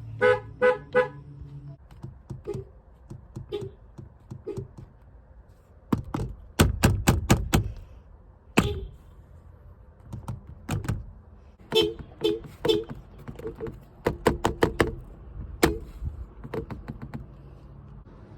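Nissan car horn tapped in rapid short beeps, a quick series near the start and another a little past the middle. Between them come many sharp clicks and thunks, loudest in a tight cluster about a third of the way in.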